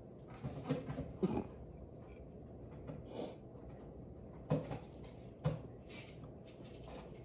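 A cat pawing and pushing its head into a cardboard box: several short cardboard scrapes and rustles with a few sharp knocks, not evenly spaced.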